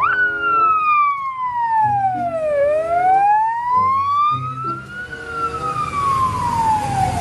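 Police siren wailing in slow sweeps: the pitch jumps up at the start, slides down for about two and a half seconds, climbs back up, then falls again. Lower steady notes play underneath, and a hiss grows louder in the second half.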